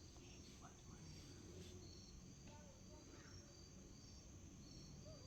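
Near silence, with a faint insect chirping: a short, high chirp repeated at a regular pace, about once or twice a second.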